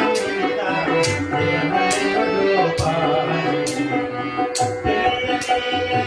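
Tabla and harmonium playing together: crisp tabla strokes land about once a second while the bayan's low note bends in pitch, over the harmonium's held chords.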